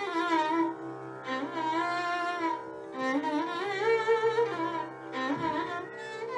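Instrumental background music: a string melody with sliding, ornamented notes over a steady low drone.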